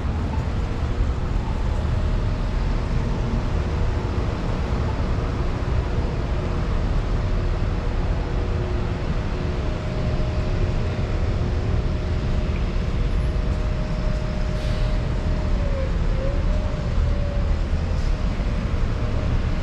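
City street traffic: a steady low rumble of passing and idling vehicles, with a thin steady whine that dips and wavers about two-thirds of the way through.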